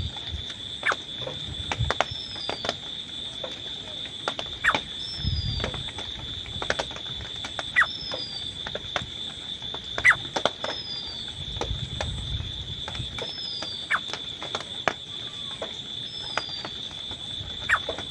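Teetar (partridge) calling: sharp, loud notes every two to three seconds over a steady high-pitched tone, with short falling chirps repeating about every second and a half.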